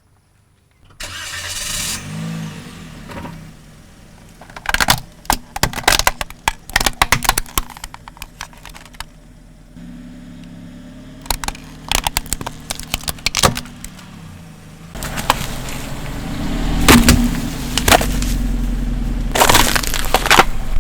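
A car engine running, with clusters of sharp crackling and crunching as the car's tyres crush objects; the engine grows louder and deeper about three-quarters of the way in.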